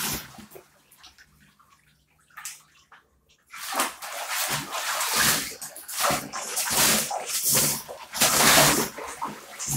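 A Samoyed splashing about in shallow water in a hot tub. It is quiet for the first three seconds or so, then comes a run of irregular splashes.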